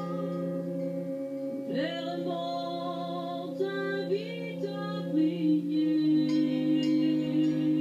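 A woman singing a song in French, backed by a small wind band of clarinet and brass holding long chords. It is a re-recording of the performance played back through a television's speaker, so the sound is thin, with no bass.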